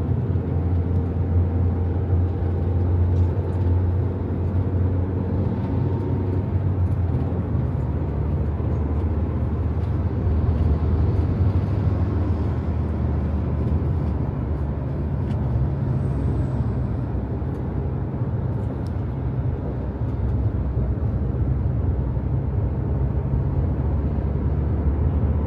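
Steady low drone of a car driving, heard from inside the cabin: engine and road noise.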